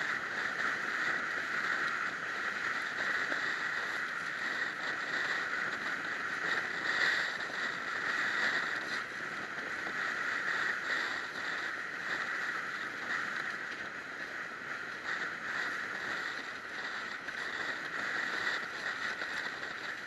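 Steady rushing hiss of water and wind as a windsurf board planes fast across choppy lake water, swelling slightly now and then.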